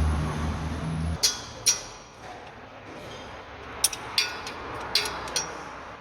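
Sharp metallic clinks and knocks of tools and parts, about six separate ones, while a car's starter motor is being bolted back into place. A low steady hum stops about a second in.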